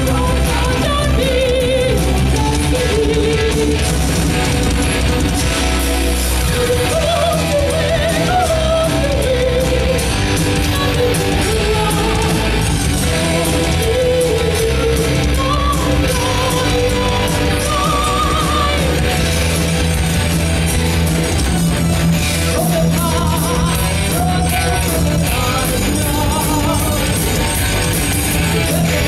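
Heavy metal band playing live: a woman singing a melodic line over electric guitar, bass guitar, keyboard and drums, loud and steady throughout.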